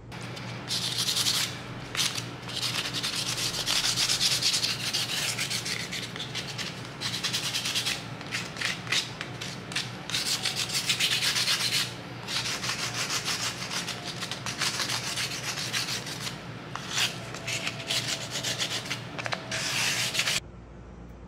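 Sanding: repeated, uneven abrasive rubbing strokes, loudest in the hiss range, over a steady low hum. It stops abruptly about a second before the end.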